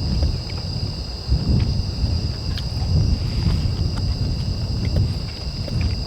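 Crickets chirring in a steady, high-pitched drone, over a gusty low rumble of wind on the microphone.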